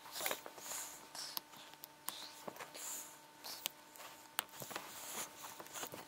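Small handling sounds of a metal mesh watch strap being fitted into the lugs of an Amazfit Bip smartwatch: scattered sharp clicks and short scrapes of metal against the plastic case.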